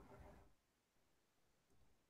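Near silence: faint room tone, with a brief faint indistinct sound in the first half second.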